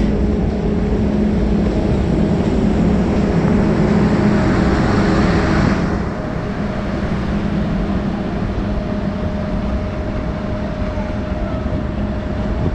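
Passenger train coaches rolling slowly past on track, a steady rumble with a low hum. A hiss builds and then cuts off suddenly about six seconds in.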